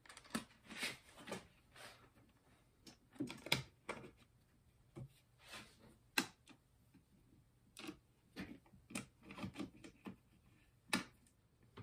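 Scattered light clicks and taps, irregular and spaced out, as a black acrylic plate is slid along an aluminium extrusion rail and its small screws and T-nuts are fitted with a hex key.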